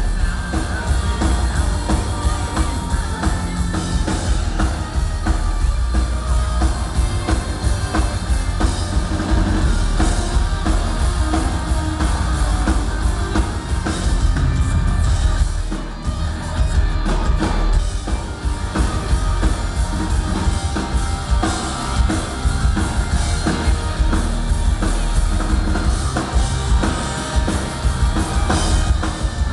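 A rock band playing live at a soundcheck, the drum kit and bass drum prominent, with a brief drop in level about halfway through.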